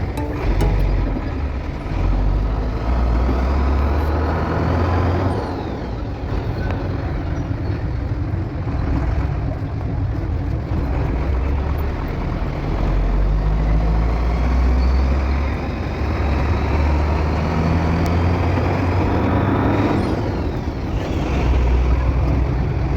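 Road vehicle noise: a continuous engine and road rumble with a heavy low end that swells and fades. Faint gliding whines come and go around five seconds in and again near twenty seconds.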